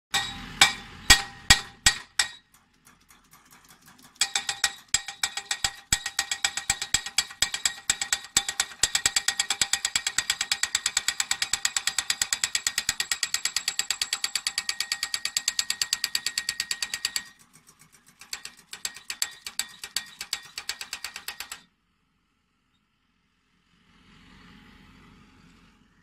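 Pile driver hammer striking a steel post, each blow ringing: a few heavy strikes about two a second, then after a pause a long run of rapid strikes, a brief break, a few more seconds of strikes, and the hammering stops.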